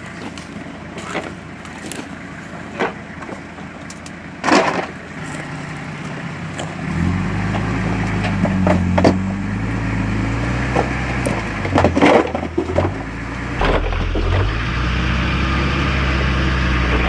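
Nissan Patrol 4WD crawling over rocks: sharp cracks and crunches of rock and recovery tracks under the tyres, with a low engine drone that starts a few seconds in and grows louder as the vehicle climbs.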